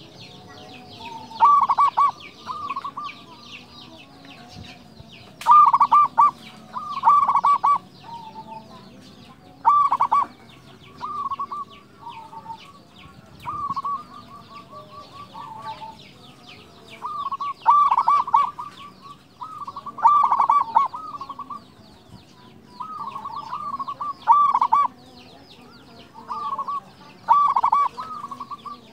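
Male zebra dove (local perkutut) cooing, repeating its phrase every couple of seconds, each phrase a quick stuttering run of notes, some phrases coming in close pairs.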